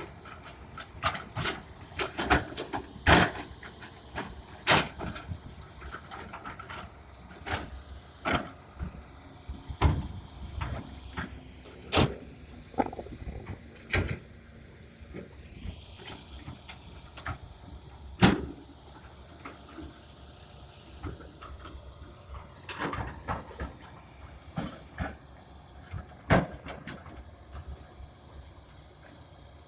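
John Deere excavator at work moving dirt: a string of sharp, irregular clanks and knocks, some loud, over the machine running steadily underneath.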